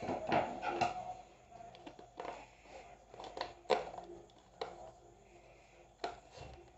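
Packaging of a gaming mouse being handled and opened: scattered clicks, taps and rustles of cardboard and plastic, the loudest about a second in and near the middle.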